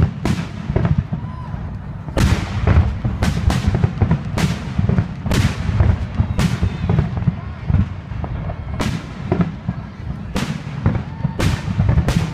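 Fireworks shells bursting: about a dozen sharp bangs at irregular intervals, each with a short echoing tail, over a steady low rumble.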